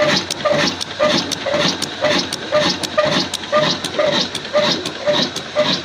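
Old black single-cylinder diesel engine of about 24–25 horsepower running slowly under load, driving a flour mill, with an even exhaust beat of about two puffs a second and sharp clicks in between.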